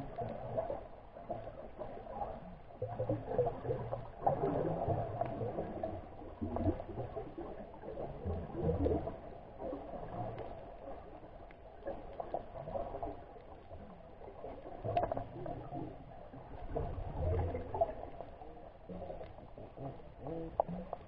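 Underwater ambient sound heard through a submerged camera's housing: muffled, uneven low rumbling and swishing of water movement, with a few faint clicks.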